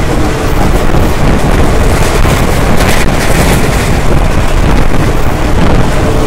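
Diesel-hauled express train running at speed, heard from on board: a loud, steady rumble of the train on the track with wind buffeting the microphone.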